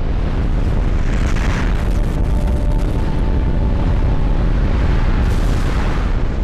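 Loud, continuous rumble of a landslide, earth and debris pouring down a hillside, with scattered crackles of breaking material about two seconds in.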